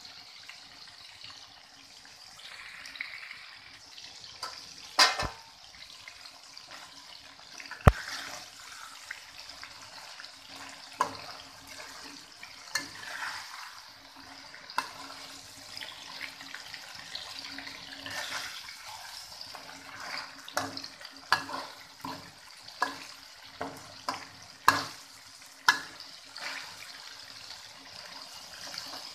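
Chicken pieces simmering in sauce in a steel wok with a steady hiss, while a metal spatula stirs and scrapes, knocking sharply against the pan many times, most often in the second half.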